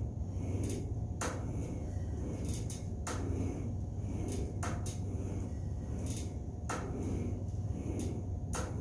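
Light clicks and clacks from a Total Gym incline trainer's glideboard and frame as crunch reps are done, the strongest coming about every two seconds in time with the reps, over a steady low hum.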